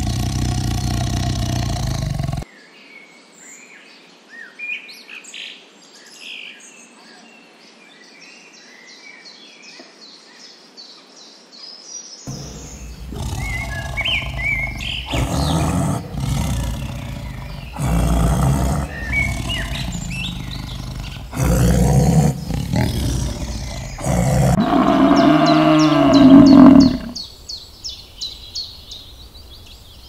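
Tiger growling and roaring in bursts, with small birds chirping in the quieter stretches between. Near the end comes one longer call that rises and then falls.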